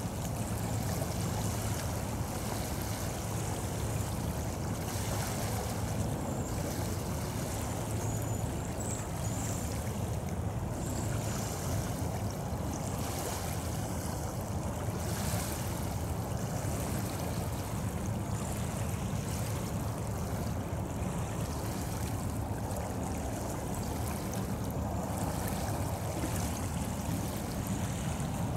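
Freight train of autorack cars rolling steadily past, a continuous rushing rumble of wheels on rail with a low steady hum from a diesel locomotive.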